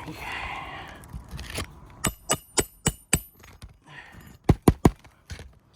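Sharp metallic clinks from metal tools striking: five quick strikes about three a second, then three more a little over a second later, after a brief scraping rustle at the start.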